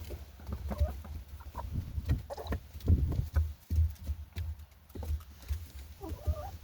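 Chickens clucking in short calls as they eat freshly scattered grain feed, over many short taps and a low thumping rumble.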